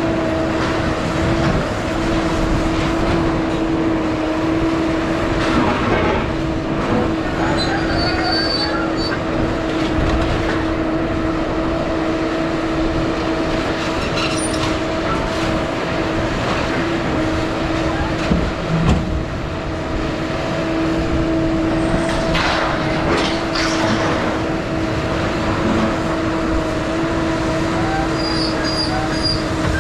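Steady vehicle running noise with a constant droning hum, and a few brief louder rattles about two-thirds of the way in.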